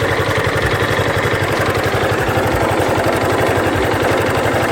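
Yamaha Fazer 250's single-cylinder four-stroke engine idling hot at a steady speed. Its owner hears a metallic knock inside the engine when it is hot, as if a little piece of iron were rattling, and it is not there when the engine is cold.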